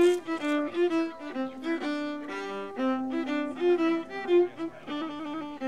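String music led by a violin: a melody of quick, changing notes over held lower notes.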